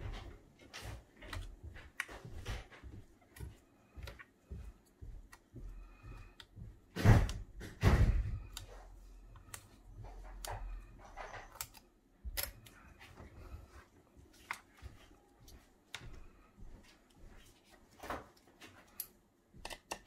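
Small clicks and light knocks of gloved hands working in an opened 2012 Mac Mini as its RAM modules are released and pulled from their slots. Two louder thumps come about seven and eight seconds in.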